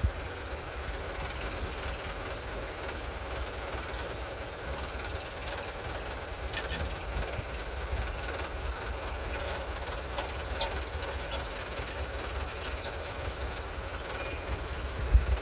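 Low, steady rumble of an idling engine, with a few faint clicks around the middle.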